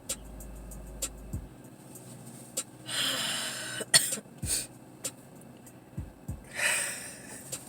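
Two short, forceful bursts of breath from a person, one about three seconds in and one near the end. A single sharp click about four seconds in is the loudest sound, and small clicks are scattered throughout.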